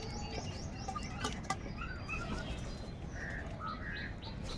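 Many birds calling together: a steady run of quick high chirps and short falling notes, mixed with a few short, harsher calls, over a steady low rumble.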